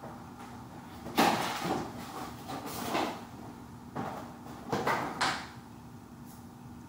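Cardboard box being handled and set down on a table: a sudden knock about a second in, a couple of seconds of scraping and rustling, then a few more bumps between four and five seconds in.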